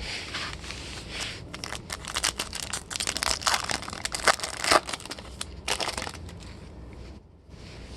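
Crinkling and tearing of a 2021 Topps Chrome trading-card pack's wrapper as it is ripped open, a dense crackle of sharp crunches that thins out near the end.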